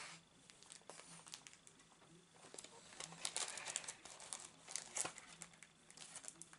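Clear plastic packaging crinkling and rustling as it is handled, in uneven spurts, loudest a little past the middle.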